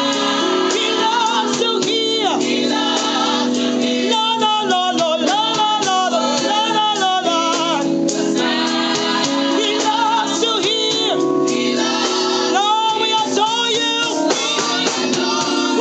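Gospel praise-and-worship singing: voices singing with vibrato over held instrumental chords, in a steady, loud flow.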